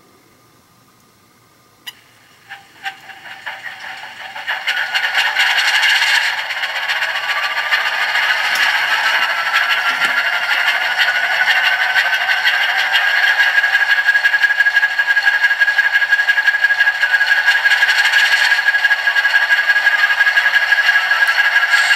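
Sound decoder in a model Alco DL-109 locomotive, playing a simulated startup of twin Alco 539 diesel prime movers through its small onboard speaker, thin and with little bass. A click about two seconds in and a few sharp pops lead into a steady diesel idle with a slowly rising whine. Near the end a second rising whine begins as the second engine starts.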